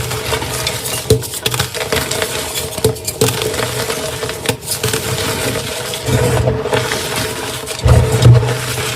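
Blocks of dyed gym chalk being crushed, a dense crunching and crumbling made of many small crackles and scrapes, swelling louder about six and eight seconds in.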